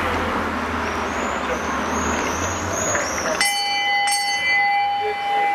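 Roadside crowd murmur and street noise as a bunch of racing cyclists passes. About three and a half seconds in, a steady high-pitched tone starts suddenly and holds, with a fainter higher tone above it.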